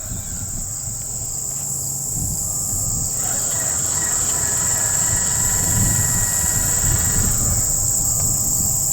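Insects buzzing in a steady, high, even drone, with a pulsing trill above it. Under it runs a low rumble that grows somewhat louder after the first second or two.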